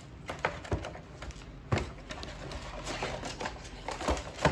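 Computer parts and their packaging being handled: scattered clicks and taps over light rustling of cardboard and plastic, with a sharper knock about a second and a half in and a few more near the end.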